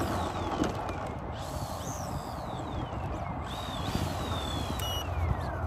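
The electric power system of a 67-inch Edge 540 RC aerobatic plane, a T-Motor AM670 motor on an 18x8 carbon propeller, whining as the throttle is blipped while it taxis. The motor whine jumps up and then falls away slowly, several times, over a steady rush of wind and propeller wash.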